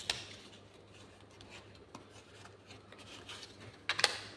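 Small plastic pieces of a Lego minifigure being handled and snapped together: quiet rubbing and fiddling, with a sharp click just after the start and two more close together near the end.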